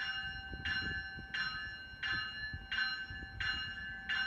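A railroad warning bell ringing at a steady pace, about seven strikes in a row, each ringing out briefly, as an electric commuter train approaches, with a faint low rumble underneath.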